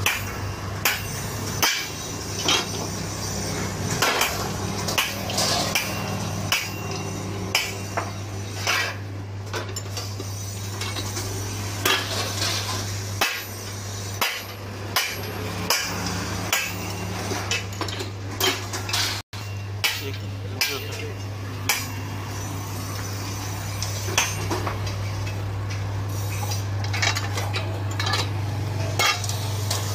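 Sharp metallic clanks of a hand-lever shearing machine cutting and handling steel sheet, coming irregularly about every second or two over a steady low hum.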